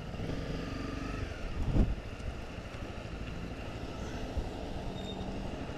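Honda CRF250 Rally's single-cylinder engine running at low road speed through a roundabout, with wind noise over the camera microphone. A brief loud rush of noise comes about two seconds in.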